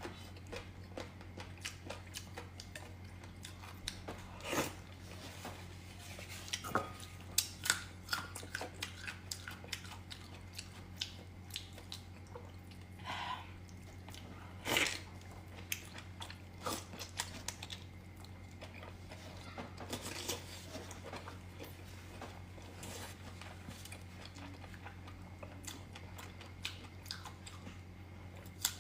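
Close-miked chewing and biting of pork lung and noodles: many small wet mouth clicks with a few louder bites, over a steady low hum.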